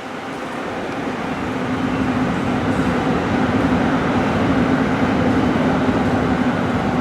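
Train running through the station. The rumble of wheels and running gear with a steady low hum swells over several seconds and begins to ease near the end.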